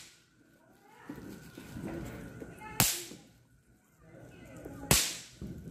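Two sharp cracks of bang snaps (pop-pops) bursting on a tiled floor, about two seconds apart, one near the middle and one near the end.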